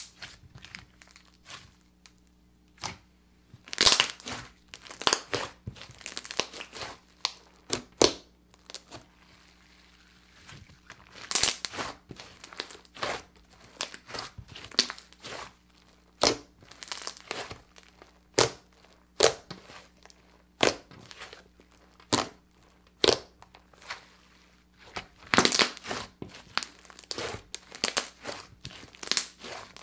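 Slime being kneaded and pressed by hand, giving clusters of sharp crackling, popping clicks with each squeeze and short quiet gaps between.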